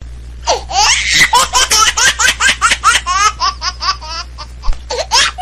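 A cartoon character laughing hard in a high voice, in quick bursts of about five a second, each falling in pitch. The laughter breaks off around four seconds in and starts again near the end, over a steady low hum from the old soundtrack.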